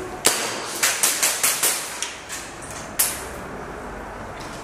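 Airsoft gun shots: about nine sharp cracks in three seconds, quickest in a run between one and two seconds in, each with a short echo off bare walls.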